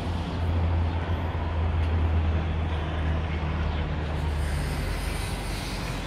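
Outdoor city traffic noise heard from high up, with a steady low engine-like hum underneath.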